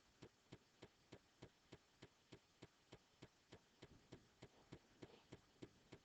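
Near silence with a faint, even ticking, about three ticks a second.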